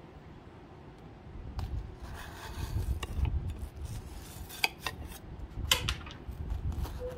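A knife cutting through a pavlova's crisp meringue, starting about a second and a half in, with a few sharp clicks of metal on the plate between about four and a half and six seconds in.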